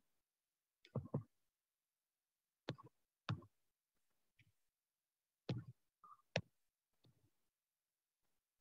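Computer mouse clicking a handful of times, short scattered clicks with near silence between them.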